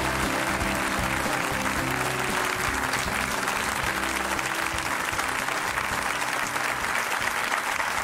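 Studio audience applauding steadily over a television show's theme music, which fades out in the second half.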